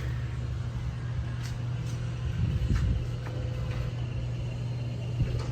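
Steady low mechanical rumble, like a running engine or shop machinery, with a few faint light clicks.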